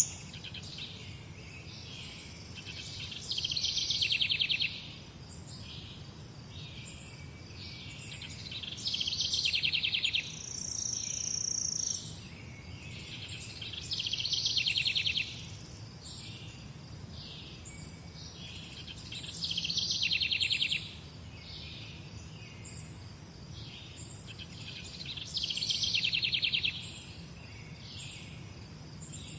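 A songbird repeats the same phrase ending in a fast trill, five times, about every five to six seconds. Quieter bird calls come in between, and there is one high, thin held note partway through, over a faint steady low background hum.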